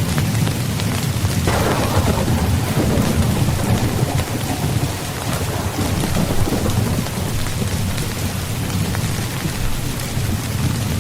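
Steady rain falling, with a constant low rumble of thunder underneath. About a second and a half in, a louder peal of thunder breaks and rolls away over several seconds.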